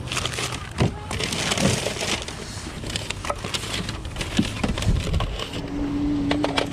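Plastic toys knocking and rattling against each other and the sides of a plastic storage tote as they are packed and shifted by hand, with paper wrapping crinkling. A brief low hum sounds near the end.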